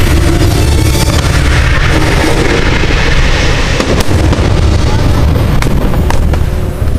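Fireworks bursting, a dense continuous din over a deep rumble with several sharp bangs, one standing out about four seconds in.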